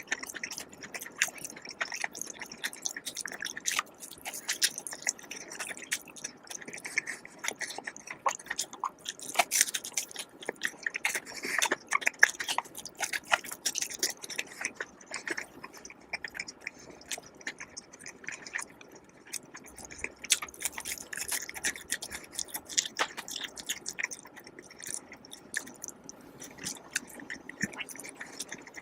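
A person chewing and biting food close to the microphone: a steady run of irregular wet clicks and smacks.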